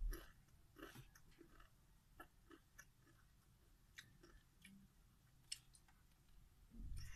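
Doritos tortilla chips being chewed: scattered soft crunches and wet mouth clicks. The strongest come at the very start, about a second in, and near the end.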